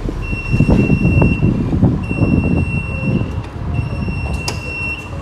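Hematology analyzer's electronic alarm beeping: a steady high-pitched tone about a second and a half long, repeating with short gaps, over a low rumbling noise.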